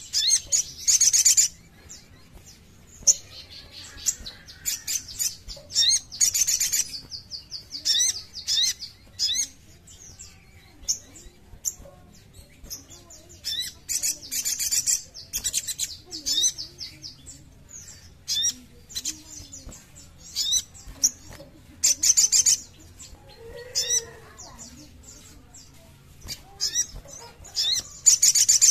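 Sunbird (sogok ontong) singing: high, sharp chirps and fast twittering trills that come in repeated loud bursts with short pauses between them.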